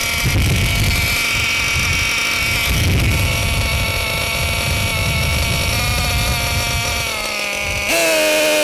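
Losi LST XXL2's Dynamite .31 cu in two-stroke gasoline engine idling steadily while its bottom (low-speed) carburettor needle is turned. The idle pitch shifts slightly in the second half, and the engine runs louder near the end.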